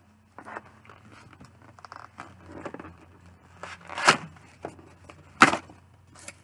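Taped cardboard shipping box being opened by hand: cardboard flaps rustling and scraping, with two loud, sharp rips about four and five and a half seconds in.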